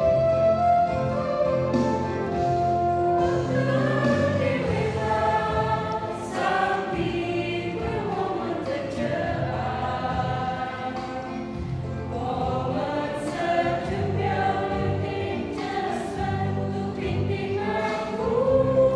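A mixed choir of women and men singing a hymn together.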